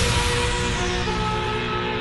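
Background music: a noisy swell fades away at the start, leaving a sustained chord of held notes.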